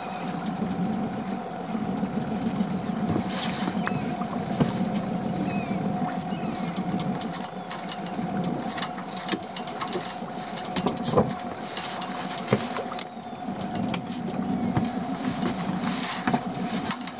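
Water lapping against the hull of a small open boat under a steady hum, with scattered clicks and knocks as a spinning reel is wound in on a hooked fish.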